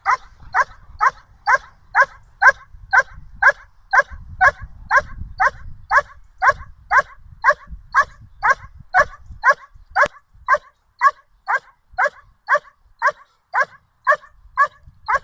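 German Shepherd dog barking in a steady, even rhythm of about two barks a second: the repeated demand barking of a dog held on leash facing a helper in protection training.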